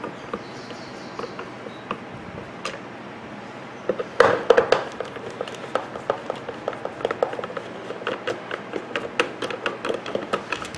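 Screwdriver backing a screw out of an Oster blender's plastic base while the housing is handled on a wooden bench. A few light clicks come first, then about four seconds in a clatter of plastic knocks, followed by a run of quick, irregular small clicks and taps.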